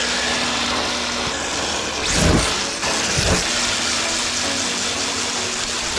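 RC drift car driving, its motor whining steadily under a constant scrabbling noise from hard plastic tires on rough ground. It gets louder twice, a little over two and three seconds in.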